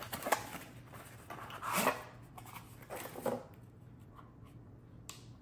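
Cardboard packaging handled by hand: a battery is slid out of its small box, with three short bursts of rustling, scraping and light knocks in the first three and a half seconds.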